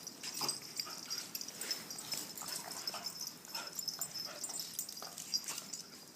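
Several dogs playing together, with scattered short yips, whines and scuffles.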